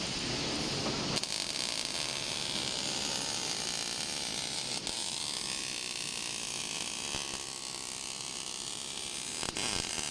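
Welding robot at work: a steady crackling hiss that changes abruptly about a second in and again near the end.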